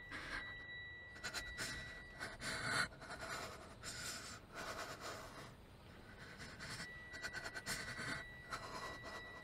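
A person breathing hard in short, uneven pants and gasps, the breath of someone frightened. A faint, steady high tone sits underneath.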